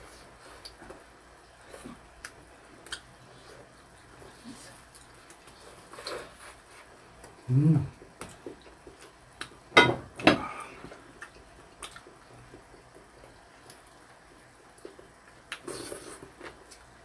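Eating sounds of grilled LA galbi beef short ribs being chewed and gnawed, with many small scattered clicks and two sharp clacks about ten seconds in.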